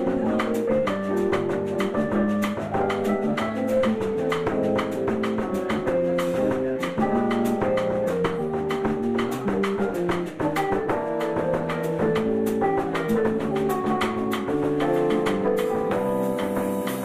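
Live instrumental music from an electronic keyboard and a drum kit: held chords and a melody on the keyboard over a steady drum beat.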